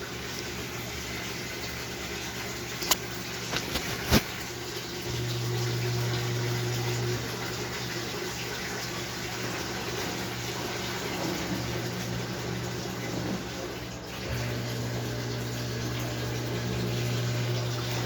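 Samsung 8 kg washing machine running a loaded wash cycle: water sloshing in the turning drum, with a low motor hum that swells for a couple of seconds about five seconds in and again from about fourteen seconds on. A few sharp clicks about three to four seconds in.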